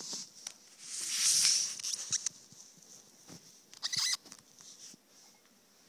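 Kitten lapping milk from a drinking glass: irregular bursts of small wet clicks and patter, loudest about a second in and again around four seconds in.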